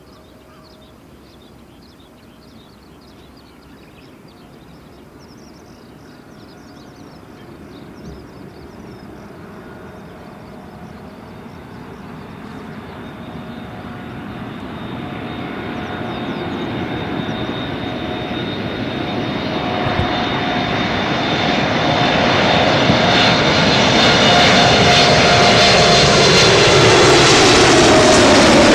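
Four GEnx turbofan engines of a Boeing 747-8F freighter on landing approach, a steady jet noise with an engine whine that grows louder throughout as the jet comes in low overhead. Near the end, as it passes over, one whining tone drops in pitch.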